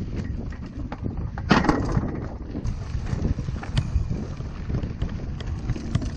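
Mountain bike rolling over rough dirt and rock, with wind buffeting the microphone, the bike rattling and tyres knocking on the ground. There is a louder scrape or knock about one and a half seconds in.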